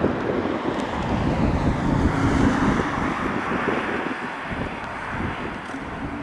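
Gusty wind buffeting the microphone, with the steady drone of an approaching Pilatus PC-12 NGX single turboprop under it.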